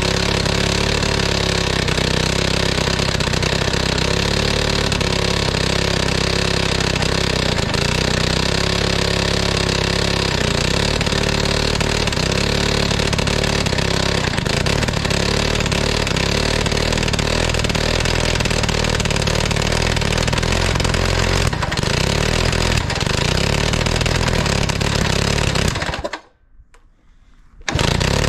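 Pionjar 120 gas-powered breaker's two-stroke engine running steadily and loudly, then cutting out suddenly about 26 seconds in; a loud sound starts again just before the end. The engine keeps dying, which the owner puts down partly to too little intake vacuum with no air filter fitted.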